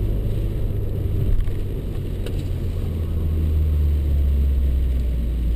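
Inside the cabin of a Renaultsport Mégane Cup: the turbocharged four-cylinder engine drones under the tyre noise from a soaking-wet road, getting louder about halfway through as the car pulls harder.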